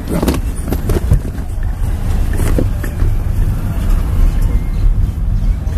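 Car's engine and road noise heard from inside the cabin as it creeps through slow street traffic, a steady low rumble. A few light knocks come in the first second or so and twice more a little later.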